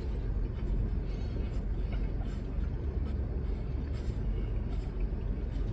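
Steady low rumble of a parked car's idling engine heard inside the cabin, with faint scattered small clicks of chewing.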